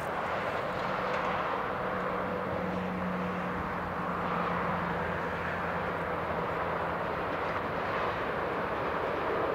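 Steady rumble of an approaching train blending with distant motorway traffic, with a faint low steady hum underneath.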